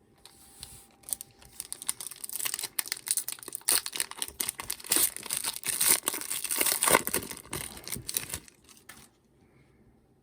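Wrapper of a 2015 Panini Prestige football card hobby pack being torn open and crinkled: a dense, crackling rustle that starts just after the start, is loudest past the middle, and stops about nine seconds in.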